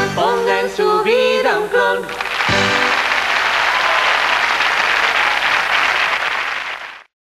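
A sung pop number ends on held notes with the band, and from about two seconds in a studio audience applauds. The applause cuts off abruptly near the end.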